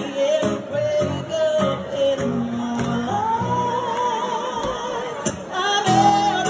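Live acoustic music: strummed acoustic guitars with a woman and a man singing together at one microphone, the melody held on one long note in the middle.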